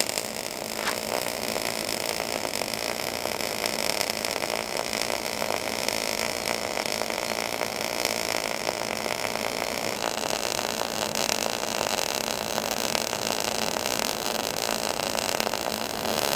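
Short-circuit MIG welding arc crackling and buzzing steadily as a vertical-up cap pass is run on a plate coupon, the character of the crackle shifting slightly about ten seconds in.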